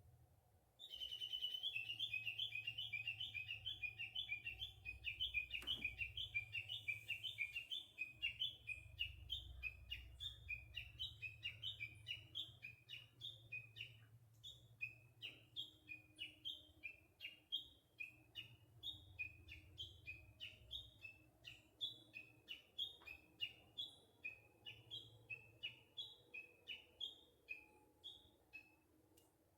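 Japanese bush warbler calling in a long unbroken run of repeated two-note phrases that starts about a second in, rapid at first and then gradually slowing and spacing out.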